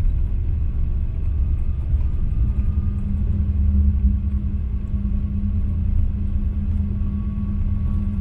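Steady low rumble of a Boeing 777-300ER heard inside the passenger cabin, with a droning hum that grows stronger about two and a half seconds in.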